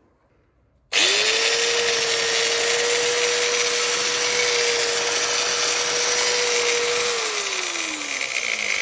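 Hitachi G12SR3 angle grinder, just repaired for bearing problems, switched on about a second in and running steadily at full speed with no disc fitted. It is switched off about seven seconds in, and its whine falls in pitch as it winds down.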